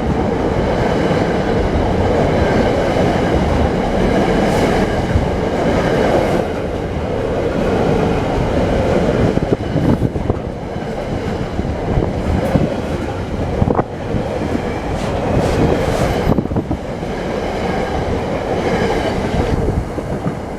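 A train running close by on the main line, with a loud, steady rumble of wheels on rails and a few scattered knocks from the track, easing off slightly near the end.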